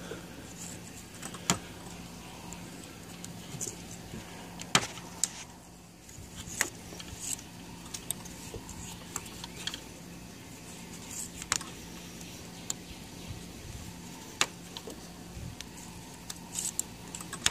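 Green bamboo poles knocking and clicking against each other and against a wooden tabletop as they are handled while tarred twine is wrapped around them in a lashing. A dozen or so short sharp knocks come at irregular intervals over a faint steady hum.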